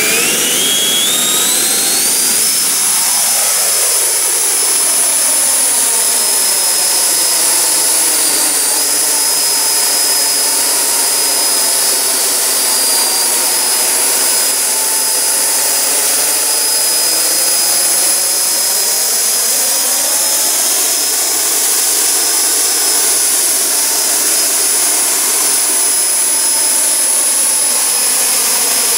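RC Harrier model's small jet turbine spooling up, its high whine rising over the first two or three seconds, then running loud and steady as the model lifts off and hovers. Its tone shifts slowly back and forth as the model moves.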